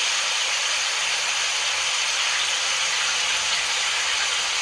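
A lot of water falling steadily: an even, unbroken rushing hiss.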